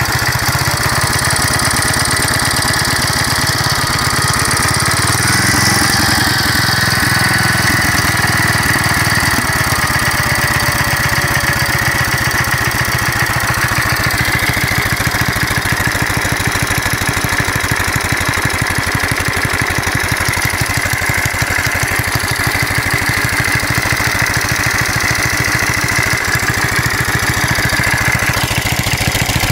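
ACME AL300 single-cylinder air-cooled kerosene stationary engine running, with a fast, regular firing beat. Its pitch shifts a little in the first ten seconds, then holds steady.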